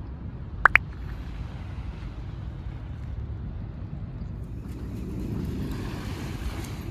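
Steady low rumble of wind and surf at a beach, with a broader wash building up about five seconds in. Just under a second in, two quick, sharp, high-pitched squeaks stand out as the loudest sounds.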